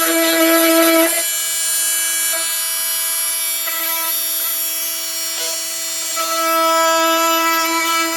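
Flex FX4111 cordless oscillating multi-tool running with a steady high-pitched buzz. The level drops about a second in and comes back up near the end.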